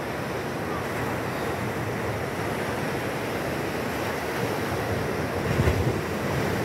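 Surf washing on a beach, a steady rushing noise, with wind buffeting the microphone; a brief louder low rumble of wind about five and a half seconds in.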